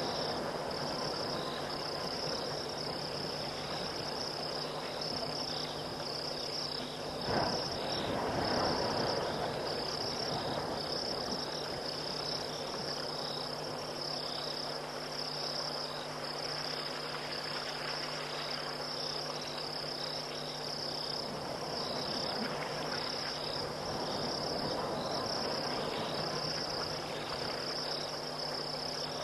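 Night chorus of crickets and other insects trilling steadily at a high pitch over a low, steady hum. A brief rustle comes about seven seconds in.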